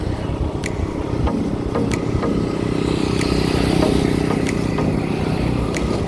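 A motor vehicle's engine running with road noise while driving, swelling slightly around the middle.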